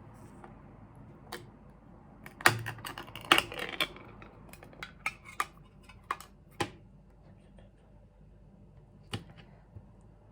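Kitchen handling clatter during food prep: sharp knocks and clicks of utensils and containers. The loudest knocks come about two and a half and three and a half seconds in, followed by a handful of lighter scattered clicks.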